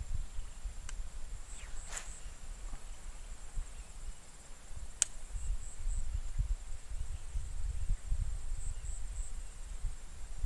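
A steady high-pitched insect drone with a few short pulsing chirps on top, over a low rumble on the microphone. Sharp clicks come about one, two and five seconds in.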